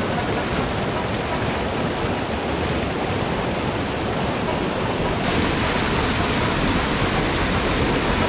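Shallow, fast mountain stream rushing over stones and rocks in a steady, full rush of water.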